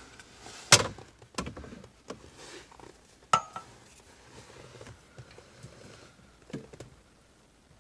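A few irregular clicks and knocks from a small ratchet and socket working a 13 mm bolt, the loudest near the start and one with a short metallic ring about halfway through.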